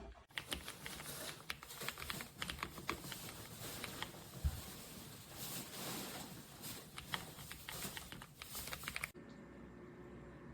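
Typing on an Ajazz AK820 Pro gasket-mounted mechanical keyboard: a quick, uneven run of key clicks. It stops abruptly about nine seconds in.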